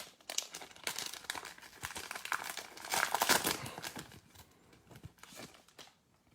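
Crinkling and rustling of a foil trading-card pack wrapper and cards being handled, loudest about three seconds in and dying away near the end.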